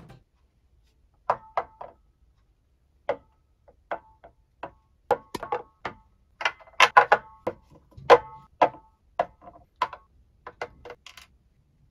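Hard painted figure parts, glossy black fist pieces and white smoke-effect pieces, being set down and shifted on a tabletop: irregular hollow clacks and knocks. They come in a thick cluster in the middle, with the loudest about seven and eight seconds in.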